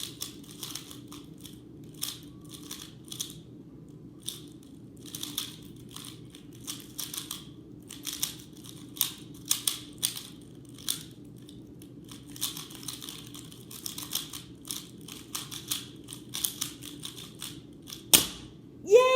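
Plastic speed cube being turned rapidly by hand, with irregular flurries of clicking and clacking as the layers are twisted. There is a sharp knock near the end.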